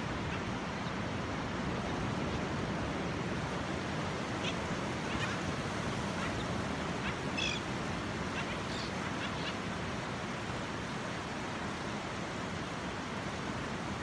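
Steady wash of ocean surf, with a few short, high-pitched calls from a flock of shorebirds on the sand, clustered in the middle of the stretch.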